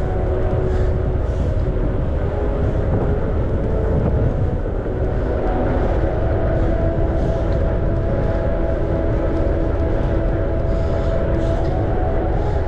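Wind rushing over the microphone and the steady rumble of a bicycle rolling along a paved path, with a faint hum that wavers a little in pitch.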